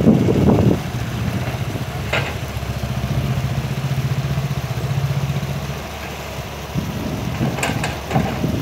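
Kobelco excavator's diesel engine, loud for about the first second, then settling to a steady idle. There is a sharp clank about two seconds in and a few more near the end.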